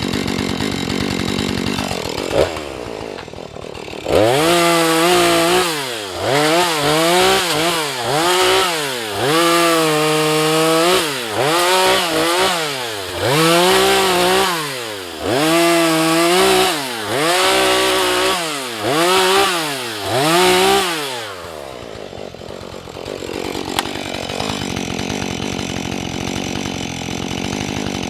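Husqvarna 435 two-stroke chainsaw revved up and down about a dozen times in quick succession, each rev rising and falling in pitch, then settling back to a steady idle for the last several seconds.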